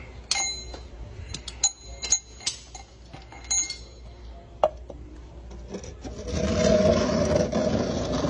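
Steel tool tapping against the tank's road-wheel hub as the new outer hub seal is seated: a series of sharp, ringing metallic clinks, about half a dozen in the first four seconds, then a single knock. Near the end comes a few seconds of loud, rough scraping noise.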